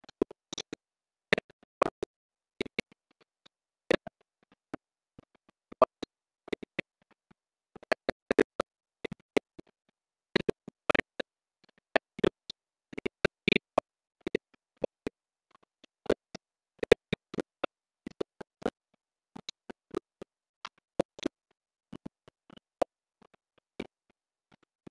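Clicks and taps from a computer keyboard and mouse: short, sharp, irregular strikes a few a second with silence between.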